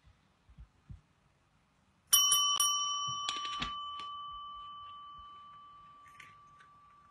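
Chrome desk call bell struck by a cat's paw about two seconds in, giving one clear ding that fades slowly over several seconds, with a few more quick taps and rattles on it about a second later. The cat is ringing the bell to ask for a treat.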